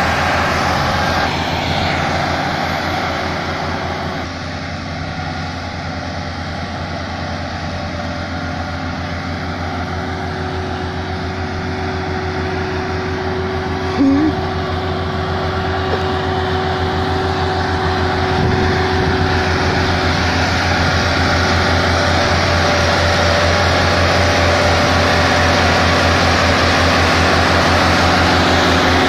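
Tractor diesel engines running hard under load with a fast, steady low firing beat, from a Massey Ferguson 375 towing another tractor by chain through sand.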